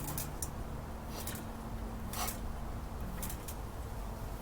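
Steady low hum with a few faint, brief rustles scattered through it.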